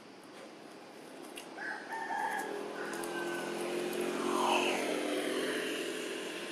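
A rooster crowing over the hum of a passing motor vehicle, which grows louder from about a second and a half in, peaks, then fades.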